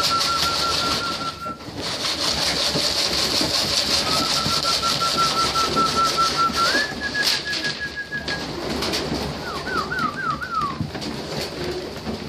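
Racing pigeons pecking grain off a concrete loft floor in many small clicks, with soft cooing. Over them a high, rapid trill repeats at one pitch, steps up once, and ends in four quick falling notes.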